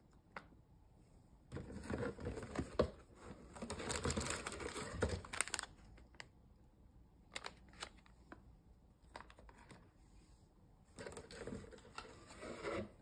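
Foil blind-bag packaging crinkling and rustling as it is handled, with light clicks and taps of toy packs set down on a table between. Near the end, more rustling as a hand reaches into a cardboard box.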